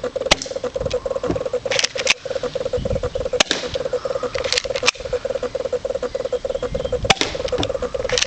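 A cheap spring-powered airsoft pistol firing: a handful of sharp snaps at irregular intervals, some in close pairs as the shot and the BB striking or bouncing off a cardboard box. A steady, pulsing buzz runs underneath.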